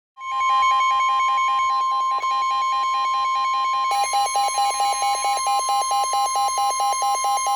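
NOAA Weather Radio warning alarm tone: one steady, piercing high tone that announces a new weather warning. About four seconds in, a second, lower tone joins it, beeping about four times a second.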